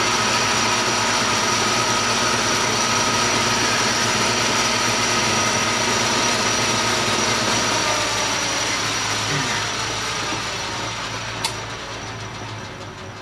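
Metal lathe running with a steady whine from its headstock gearing and motor, then switched off and winding down over the last few seconds. A sharp click sounds near the end.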